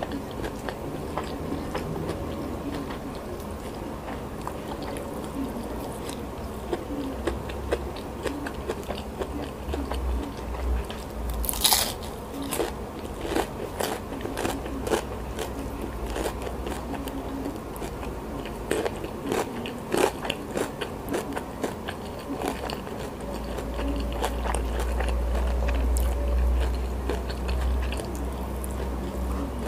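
Close-miked mukbang eating: chewing with crisp, crunchy bites of a meal of rice, fried salted fish, crispy tofu and raw herbs eaten by hand. One sharp, loud crunch comes about twelve seconds in, and a louder spell of low rumbling comes near the end.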